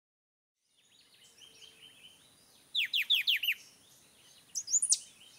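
Songbird calling: a run of four loud notes, each sliding downward, about three seconds in, then a quicker phrase of higher notes near the end, over fainter bird chirps and a steady thin high tone.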